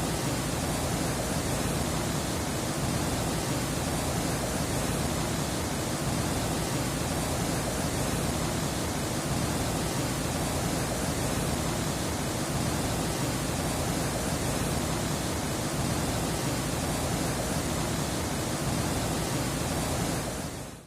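Waterfall: a steady, even rush of falling water, fading out at the very end.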